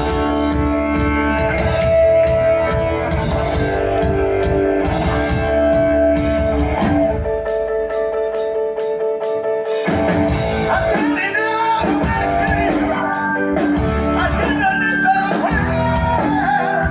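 Live rock band playing loudly, heard from the crowd: electric guitar and sustained chords over drums and bass. The bass and drums drop out for a few seconds past the middle, then a male lead vocal comes in.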